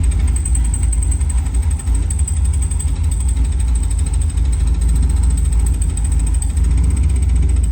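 Third-gen Camaro Z28's cammed V8 running steadily after a T56 manual transmission swap, with a thin steady high whine over the low rumble. The owner traces the noise in this clip to the clutch fork overextending and hitting the pressure plate.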